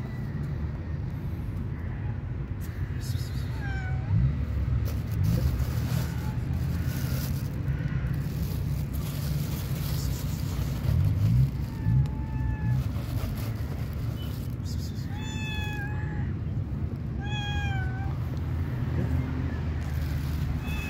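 A domestic cat meowing several times, short calls spread through the stretch and clearest in the second half, over a steady low rumble.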